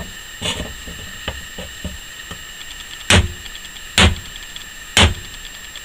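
Zone-hardened ShKh15 bearing-steel knife blade chopping three times onto a strip of iron: three sharp metallic strikes about a second apart, each ringing briefly. It is an edge test: the hardened edge notches the softer iron.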